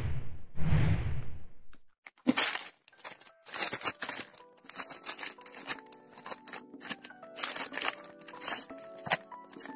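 Two whooshes from the animated intro, then a plastic mailer bag crinkling and crackling as hands grip and work it open, over background music.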